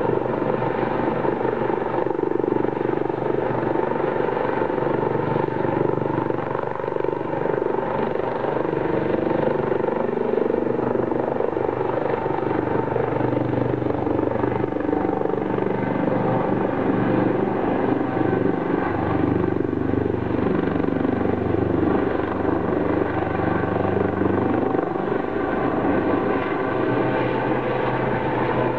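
U.S. Coast Guard HH-65 Dolphin helicopter flying close by, its rotor and turbine engines running steadily, with several steady tones over the rotor noise.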